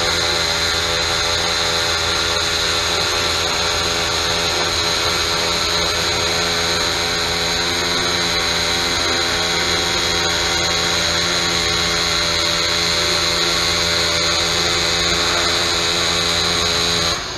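Synchro-feed aluminum MIG welding arc buzzing steadily as the robot torch lays down a bead of wire, with a high whine running through it. It drops off sharply right at the end.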